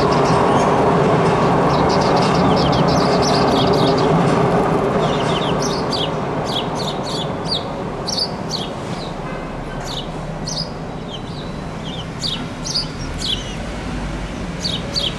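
Light rail train rolling past over the crossing, its steady running noise fading out over the first five or six seconds. Small birds chirp throughout in quick, high, falling chirps, plainer once the train has gone.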